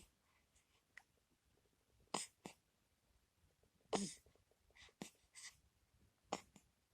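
Six short, sharp breathy sounds. The loudest comes about four seconds in and carries a brief voiced note, as in a yawn.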